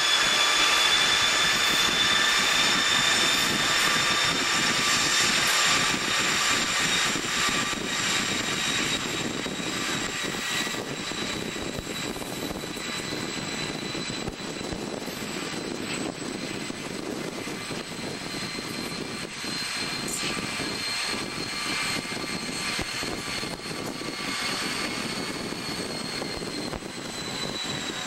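DR class 232 'Ludmilla' diesel locomotive working hard as it pulls the train away, heard from a coach behind it: a steady engine sound with a high whistling whine that climbs slowly in pitch as the train gathers speed, mixed with wheel and rail noise.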